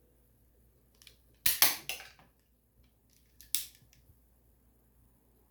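Foldable toy revolver being fired: a loud double snap of the spring mechanism about a second and a half in, with a lighter click just before and after, then one more sharp snap about two seconds later.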